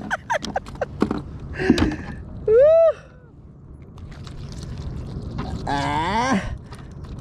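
Clicks and knocks of a caught fish and fishing tackle being handled by hand, thickest in the first two seconds. A short rising-then-falling wordless vocal call comes about two and a half seconds in, and a longer falling one near six seconds.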